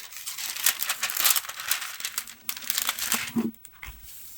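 Crinkling and rustling of plastic as a diamond painting canvas is handled, with dense small crackles for about three seconds before it quietens.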